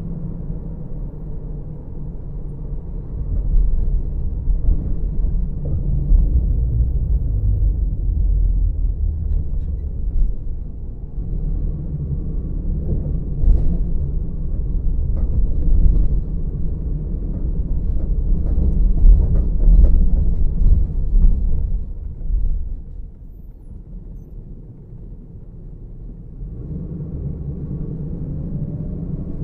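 Car running along city streets, heard from inside the cabin: a low, uneven rumble of engine and road noise. It drops quieter for a few seconds near the end, then rises again.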